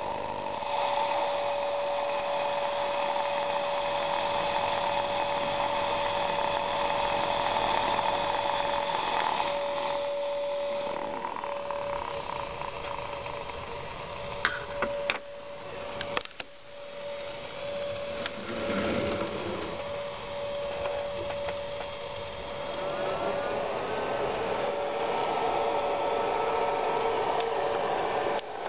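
Coil of an audio-frequency water heater buzzing with a steady tone over a hiss, with a few sharp clicks partway through.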